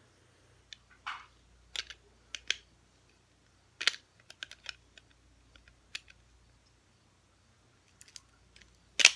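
Plastic Lego bricks clicking and knocking as they are handled and pressed together: scattered, irregular sharp clicks, the loudest one near the end.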